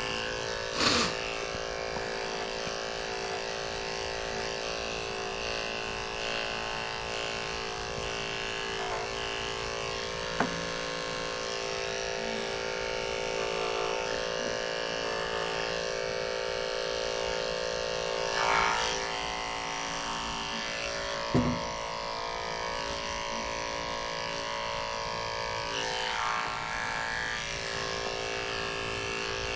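Electric dog-grooming clippers running with a steady motor hum while trimming a Shih Tzu puppy's coat. A few short clicks and knocks break in, about four in all.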